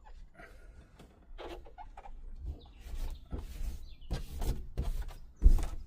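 Sound-deadening mat being pressed and worked onto a van's sheet-metal roof panel: irregular rubbing and scraping, with one heavy thump against the panel about five and a half seconds in.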